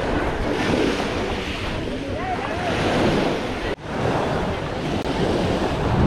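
Busy beach ambience: small sea waves washing on the shore and wind buffeting the microphone, with scattered voices and shouts of bathers. The sound cuts out for an instant a little past halfway.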